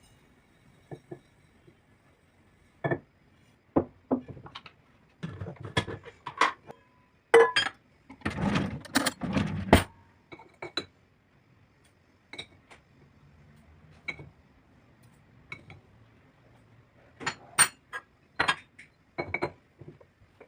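Dishes, glass and cutlery being handled: scattered clinks and knocks, with a denser two-second stretch of clattering and noise about eight seconds in.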